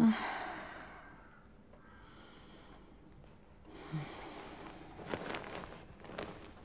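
A woman's short pained groan that dies away over about a second, then a heavy, sighing breath about four seconds in, with rustling near the end.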